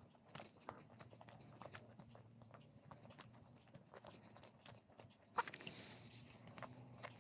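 Faint close-up mouth sounds of a person chewing and biting fried food: many small wet clicks and crunches, with one sharper, louder click about five seconds in, over a low steady hum.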